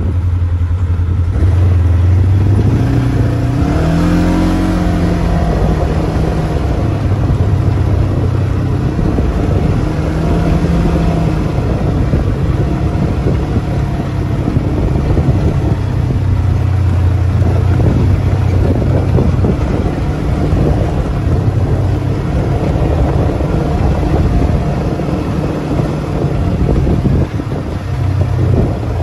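Vehicle engine running while driving over a dirt track, a steady low drone with the engine note rising and falling as the throttle changes, about four and ten seconds in.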